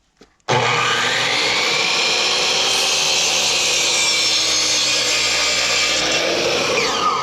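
Power saw cutting through a wooden framing board, a loud steady cut of about six seconds that starts half a second in, then the motor winding down near the end.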